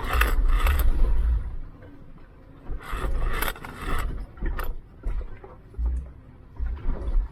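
Jeep scraping and grinding against rock in a few loud bursts, with heavy low thumps, as it works over a rock obstacle.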